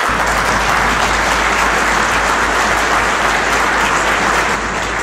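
A roomful of people applauding, a steady crowd of clapping hands.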